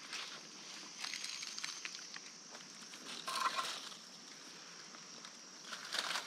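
Dry leaf litter and twigs rustling and crunching under a person's feet and hands as he shifts about at the base of a tree, with a louder crunch about three and a half seconds in. A faint steady high-pitched hum sits behind it.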